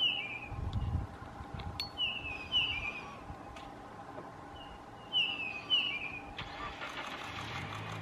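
Grey-headed bullfinch calling: short whistled notes sliding downward, mostly in pairs about half a second apart, repeated every two to three seconds. About six and a half seconds in, the engine noise of a vehicle rises underneath.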